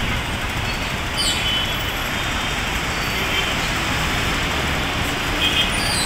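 Steady traffic noise at a busy city intersection: engines and tyres of cars, buses and trucks, with a heavy dump truck pulling across. Brief high chirps come about a second in and near the end.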